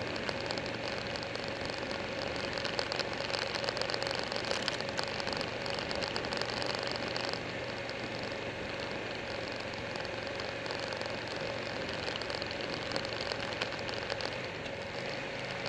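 Buell 1125R's liquid-cooled V-twin engine running at a steady road speed under a heavy, even rush of wind on the microphone.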